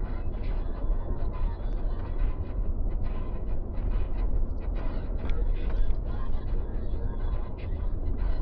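Steady road and engine rumble of a car driving, heard from inside the cabin by a dashcam, heaviest in the low end with no single standout event.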